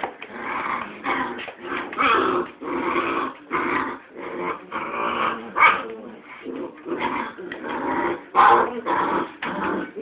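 Six-week-old puppies playing together, growling and yipping in a steady run of short calls, about two a second.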